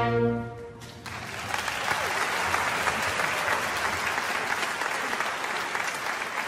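An orchestra's closing chord dies away, and about a second in a theatre audience breaks into steady applause at the end of the aria.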